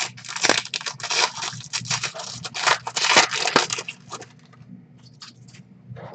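Foil wrapper of a 2019 Donruss Football card pack being torn open and crinkled as the cards are pulled out: dense crackling for about four seconds, then a few fainter rustles.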